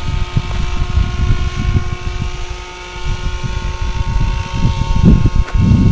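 Large radio-controlled scale helicopter in flight, its engine and rotors giving a steady high tone. Wind buffets the microphone with a gusty rumble that is louder than the helicopter, heaviest near the end.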